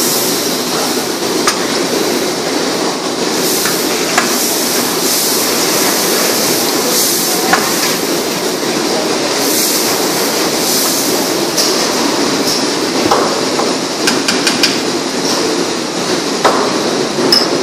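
A large aluminium stockpot of tomato-paste spice base sizzling and bubbling hard over a burner, a steady loud hiss with scattered knocks of the long metal ladle against the pot.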